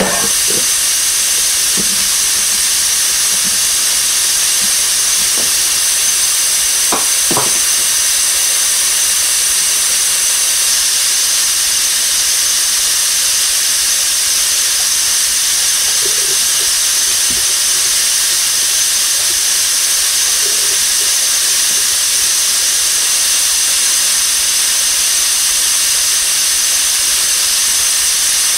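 Kitchen faucet running into a sink piled with soap suds: a loud, steady hiss, with a couple of faint ticks about seven seconds in.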